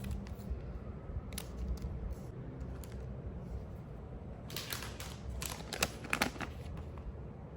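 Light clicks and rustles of snack box packaging being handled, with a dense cluster of clicks and crinkles about two-thirds of the way through, over a steady low hum.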